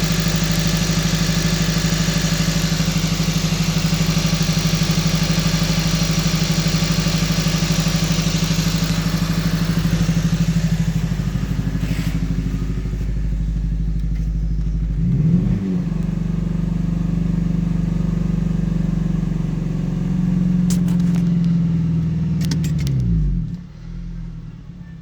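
A 2012 Honda Civic Si's four-cylinder engine running at high idle with a misfire, which the owner traces to the number 4 cylinder injector not firing because of a faulty ECM. The engine speed dips and recovers about 15 seconds in, then falls away near the end and the sound drops off sharply.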